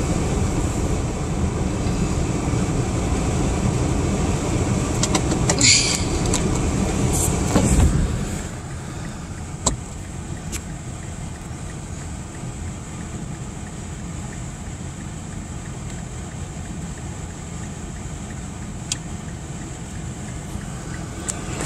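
Car heard from inside the cabin: a heavier rumble of the car moving, with a couple of knocks around six and seven seconds. About eight seconds in it settles to a quieter steady engine idle with the transmission in park, broken only by a few faint clicks.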